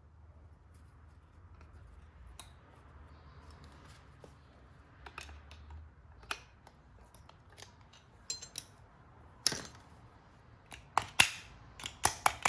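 Snap-ring pliers working a metal snap ring onto an air-conditioning compressor's magnetic clutch: scattered light metallic clicks, then several louder sharp snaps and clicks in the last three seconds as the ring is seated.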